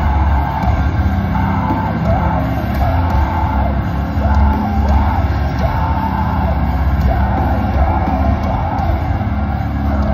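Live metal band playing loudly through a concert PA: heavy, distorted guitar and bass with drums and a singer's voice over the top, heard from the crowd with a thick, boomy low end.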